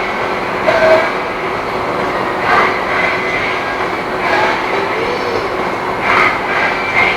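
Machinery running with a steady din, and a louder surge with squealing tones about every two seconds, four times in all.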